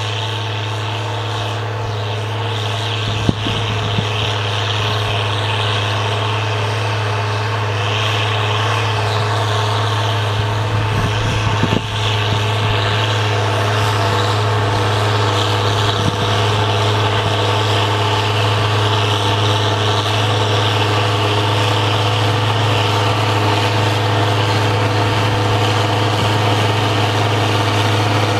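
International 886 tractor's six-cylinder diesel engine running steadily under load while pulling a disk harrow through sod. It grows gradually louder as the tractor comes closer.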